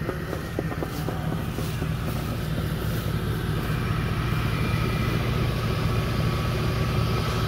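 Engine of a 1966 Ford pickup idling steadily, getting gradually louder as it is approached, with a few footsteps in grass in the first couple of seconds.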